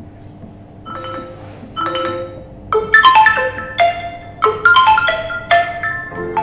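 OPPO A78's stereo loudspeakers playing a plucked, marimba-like ringtone melody. A few soft notes come about one and two seconds in, then a louder and busier run of notes starts about three seconds in.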